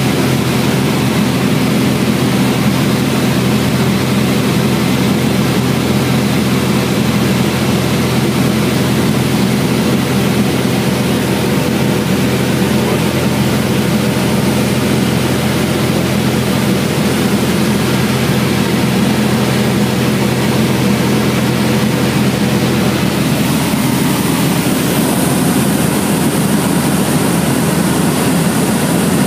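Cabin drone of a Cessna 172XP in flight: its six-cylinder Continental IO-360 engine and propeller running steadily, heard from inside the cockpit. A higher hiss joins about three-quarters of the way through.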